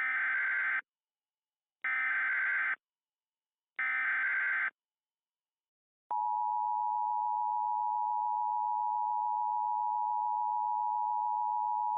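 Emergency Alert System alert opening: three short bursts of SAME digital header data, each just under a second long and about two seconds apart. About six seconds in, the steady EAS attention tone starts and holds.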